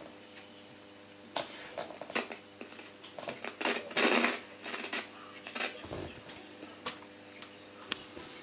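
Sony TFM-C590W radio alarm clock switched to AM, its speaker giving a steady low hum with bursts of static and crackle, mixed with small clicks of its controls being handled. The loudest burst of noise comes about four seconds in.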